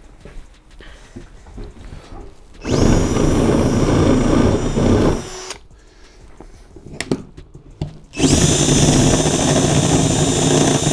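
Hercules cordless drill running twice under load, each run a steady whine of about three seconds, as it bores shallow countersink holes for washers into carpeted plywood. Light clicks and handling noises come between the two runs.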